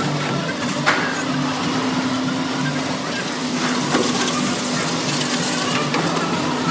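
King crab processing line running: a steady hum and hiss from the conveyor machinery, with a few sharp knocks about a second in, near four seconds and near six seconds.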